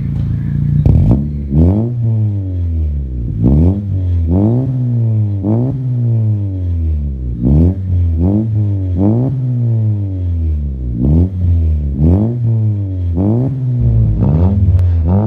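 2018 Honda Civic RS's 1.5-litre turbocharged four-cylinder running through a full turboback exhaust with titanium mufflers and dual exits. It is blipped in quick free revs about once a second, each climbing sharply and falling back toward idle.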